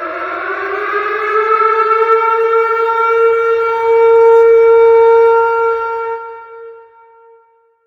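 Tornado warning siren wailing: it winds up in pitch, holds a steady loud wail, then fades and dies away about six to seven seconds in.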